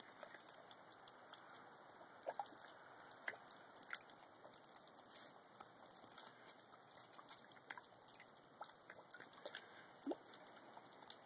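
Faint, scattered ticks and rustles of a dog sniffing and pawing at crusted snow and dry grass, digging at a hole in the snow.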